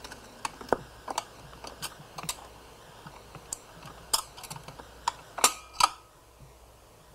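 Automatic 45 rpm record changer cycling at the end of a record: a run of irregular mechanical clicks and clacks as the tone arm lifts and swings off the disc, the last few with a short metallic ring.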